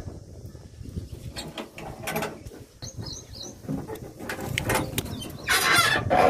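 Scattered mechanical clicks and rattles, with a louder stretch of rattling in the last second. A small bird chirps three quick falling notes about three seconds in.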